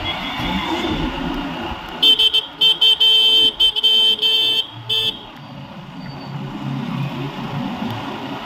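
A vehicle horn honking in a rapid series of short blasts for about three seconds, starting about two seconds in. Underneath it runs the rumble and wind noise of a motorbike on the move.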